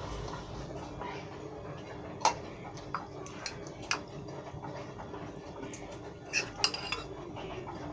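Metal spoon clinking against a ceramic bowl and a plastic blender cup as mango slices are spooned across. There are several sharp clinks, the loudest about two seconds in and a quick cluster near seven seconds, over a steady low hum.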